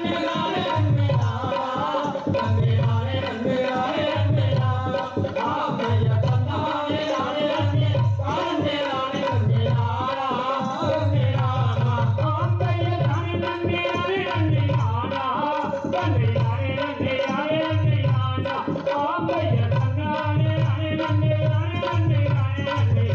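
Tamil valli kummi folk song: singing over a steady, regular drum beat.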